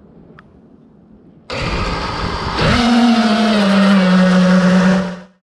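FPV quadcopter taking off from the ground: its motors and propellers spin up with a sudden loud rush of prop wash and wind, then settle into a steady buzzing hum that dips slightly in pitch. The sound cuts off suddenly near the end.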